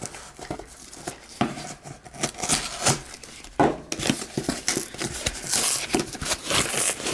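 Packing tape on a small cardboard shipping box being cut open and the cardboard flaps pulled apart. The sound is a string of irregular scrapes, short rasps and clicks of cardboard and tape.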